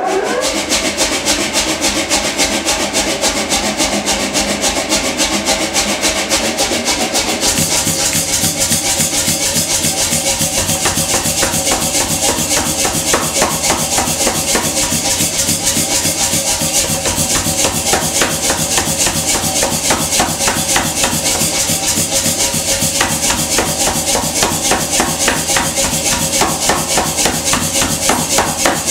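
Mechanical power hammer running with its flywheel spinning and a steady motor hum. From about seven seconds in, the ram starts striking hot rebar in a rapid, even run of blows that goes on without a break.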